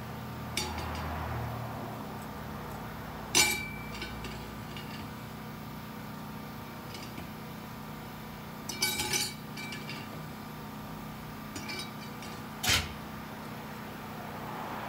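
Steel transmission parts clinking against each other on a workbench: a few separate sharp metallic clinks, the loudest about three and a half seconds in, a short cluster near nine seconds and another near thirteen, over a steady low background hum.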